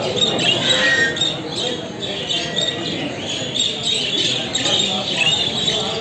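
Many caged budgerigars chattering continuously together in a show hall.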